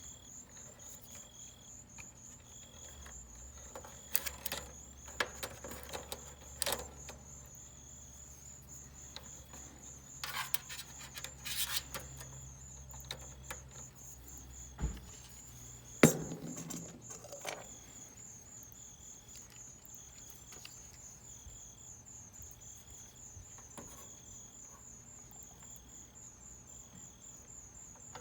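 Crickets chirping steadily, with scattered clicks and knocks from handling parts and tools, the sharpest knock about sixteen seconds in. A low hum runs underneath for the first half and stops.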